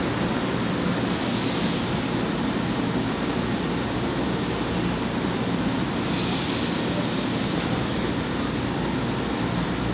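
A São Paulo Metro train standing at the platform, its equipment running with a steady low rumble, with two short high hisses about a second in and about six seconds in.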